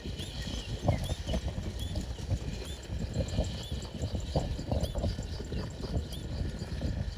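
Outdoor nature sound: faint, high arched chirps repeating about twice a second over irregular low rustling and knocking.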